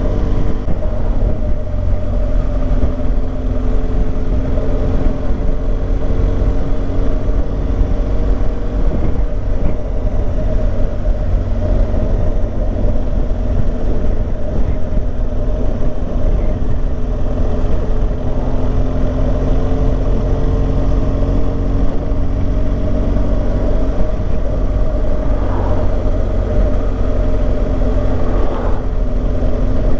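Motorcycle engine running steadily while riding at cruising speed, with a heavy low rumble of wind noise across a helmet-mounted camera microphone.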